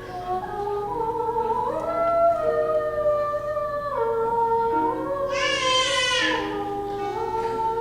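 A female voice sings a soft lullaby in long held notes that step up and down over a musical accompaniment. One louder, brighter note comes about five seconds in.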